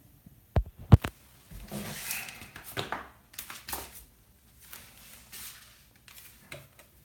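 Handling noise from a handheld phone being turned and carried: two sharp knocks about a second in, then rustling and shuffling that grows fainter near the end.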